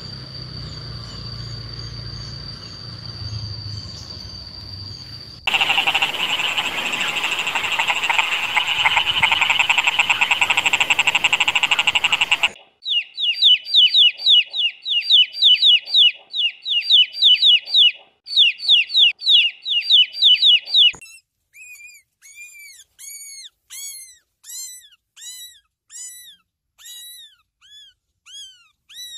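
A run of different animal calls. First a steady high-pitched whine over a low rumble, then from about five seconds a loud, fast-pulsing croaking chorus. From about twelve seconds come rapid chirping trills in short bursts, and from about twenty-one seconds single rising-and-falling peeps, roughly two a second.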